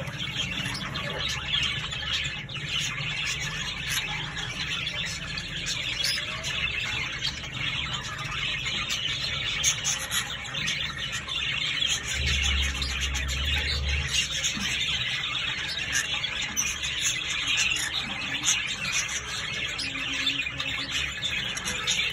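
Young green-cheeked conures calling in a raspy, unbroken chatter.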